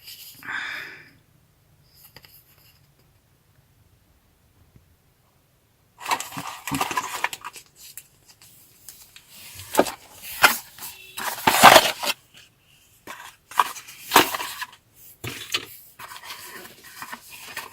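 A small cardboard retail box and its plastic packaging being handled and opened by hand: irregular clicks, scrapes and rustles, starting about six seconds in after a short quiet stretch.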